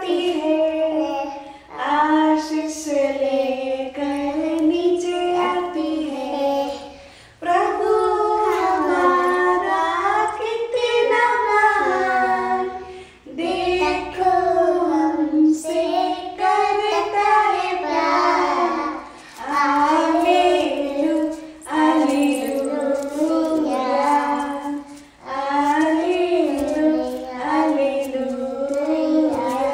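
A child singing a song unaccompanied, one voice in melodic phrases with short breaths between them.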